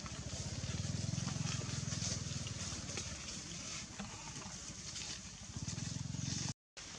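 A small engine running at a low, even putter, strong at first, easing about three seconds in and picking up again near the end, over a steady high hiss. The sound cuts out completely for a moment just before the end.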